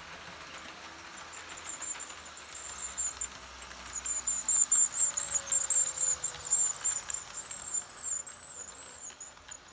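Model passenger train, a diesel locomotive with bilevel coaches, running past on the layout track: a rolling rumble with a thin high squeal over it that grows louder as the train passes, then fades away near the end.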